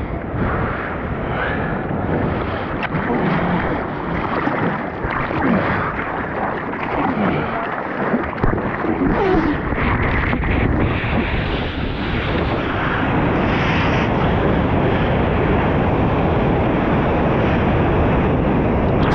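Water rushing and splashing right at an action camera on a surfboard as the surfer paddles into and rides a wave, with wind noise on the microphone. The rush turns steadier and louder about two-thirds of the way through, as the board runs along the wave.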